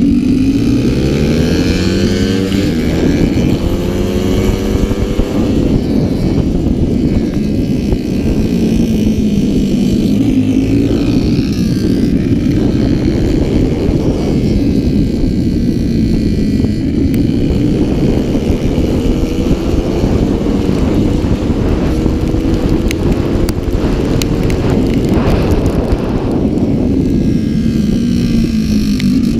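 Onboard sound of a Honda 70cc race motorcycle's small single-cylinder engine, revving up in rising sweeps and dropping back again and again as it accelerates out of corners and backs off into them, over a steady rush of wind and spray noise.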